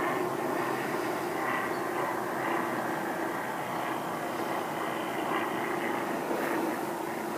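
Light propeller aircraft flying at a distance, a steady engine drone that holds the same pitch throughout.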